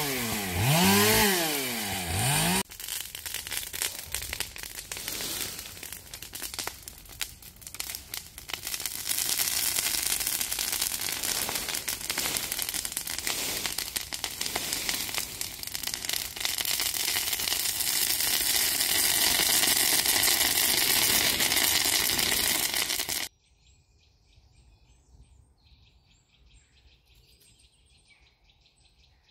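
Chainsaw revving up and down a few times, then a long, loud rushing, crackling noise from the tree-clearing work that swells twice and cuts off abruptly, leaving faint birdsong.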